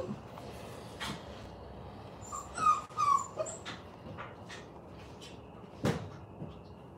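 A dog whimpering: a few short, high whines a little over two seconds in, with a sharp knock before them and another near the end.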